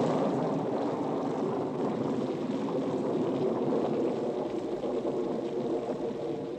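Steady heavy rain, a dense even hiss of downpour, easing slightly near the end.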